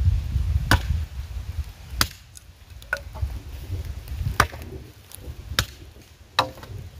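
Chopping strokes of a blade tool into a wooden plank: about six sharp, separate strikes, roughly one a second.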